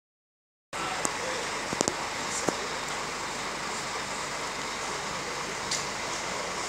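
Steady rushing outdoor noise with indistinct voices mixed in and a few sharp clicks, starting after a brief silence at the very beginning.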